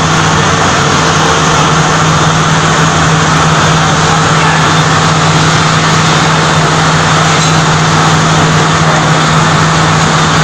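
Multi rip saw woodworking machine running steadily: a loud, constant machine noise with a steady low hum that does not change.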